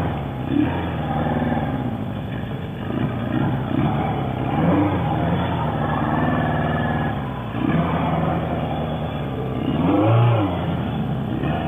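Motorcycle engine running on the move, its revs rising and falling several times, most strongly about ten seconds in.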